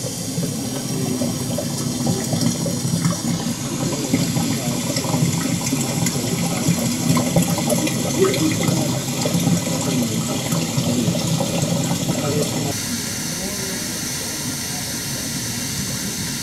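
Waterfall rushing in a steady wash of noise, with a choppy, jumbled lower layer over most of it. The sound changes suddenly twice, about three seconds in and near the end, as happens in a corrupted recording.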